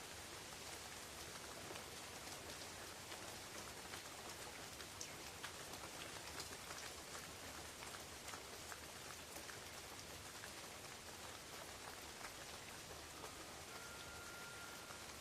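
Steady rain falling on forest leaves: an even hiss with scattered ticks of individual drops. A faint thin whistle-like tone comes in near the end.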